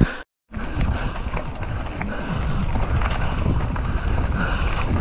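Mountain bike riding over a dirt trail: a steady rumble of tyres and rattling bike, with wind on the microphone, starting after a brief cut near the start.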